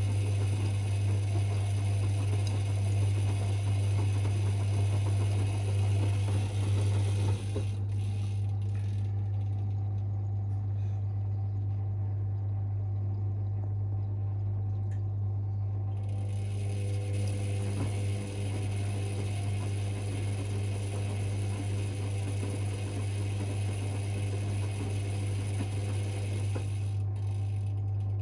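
Privileg 5020 front-loading washing machine tumbling its drum in the wash cycle: the motor runs for about seven seconds, pauses for about eight, then turns the drum again for about eleven seconds before the next pause, over a steady hum. The owner says the motor sounds its years of laundry work.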